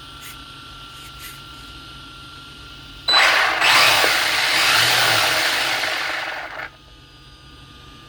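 Arrma Senton BLX 3S RC truck's brushless motor and drivetrain whirring under throttle on a test run after a spur gear replacement: it starts abruptly about three seconds in, runs for about three and a half seconds and cuts off suddenly.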